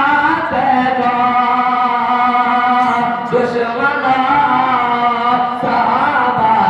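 A male voice singing a naat, an Urdu devotional song in praise of the Prophet, unaccompanied and amplified through a handheld microphone. It moves in long drawn-out, ornamented phrases, with a new line starting about halfway through and again near the end.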